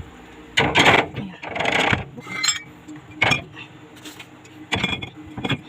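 Items being put into a refrigerator, knocking and clinking against its shelves and each other in a series of short rattles, about six in all.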